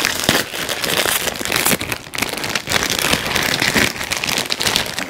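Plastic wrapper of a packaged 7 Days croissant crinkling and crackling as it is pulled and torn open by hand.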